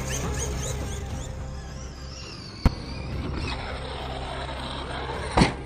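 Background music with a steady low bass, broken by two sharp bangs: a short one midway and a louder one near the end.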